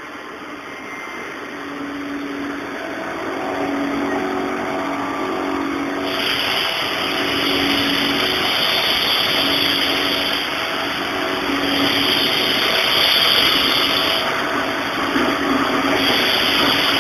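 Haas VF-2 machining center fast-feed milling 1018 steel with a Sandvik CoroMill carbide insert cutter: a steady machine sound under a hiss that grows much louder about six seconds in.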